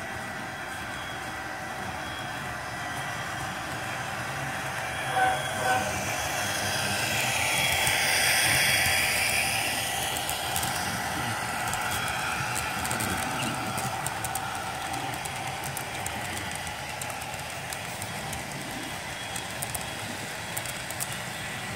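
HO scale Bachmann model diesel locomotive's DCC sound decoder playing diesel engine sound through its small speaker, with two short horn toots about five seconds in. The sound swells as the locomotive passes close by, then the freight cars' wheels click steadily over the rail joints.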